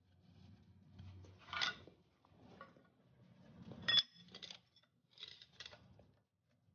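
Steel parts clinking and scraping as a bearing cup is handled and set over the tapered side bearing of a truck differential carrier. The loudest sound is a short, ringing metal clink about four seconds in.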